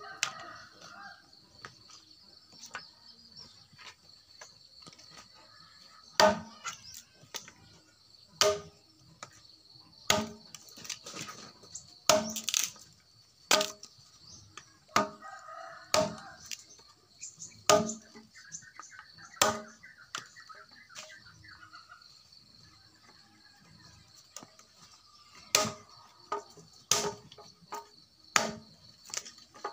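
Machete chopping dry branches on a log: sharp woody knocks, mostly a second or two apart, starting about six seconds in and pausing for a few seconds past the middle. A steady high insect drone is heard throughout, with chickens calling now and then.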